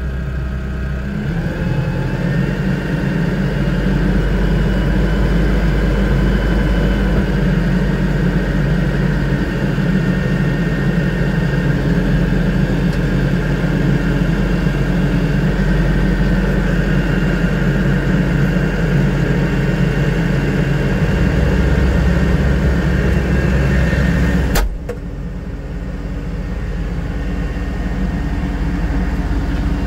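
LS tractor's diesel engine running steadily at about 1,000 rpm on a freshly changed air filter; the old one was badly clogged and the engine had been shutting down, and it now sounds better. The engine picks up a little in speed about a second in. Near the end the cab door shuts with a sharp knock, and the engine sounds duller from inside the cab.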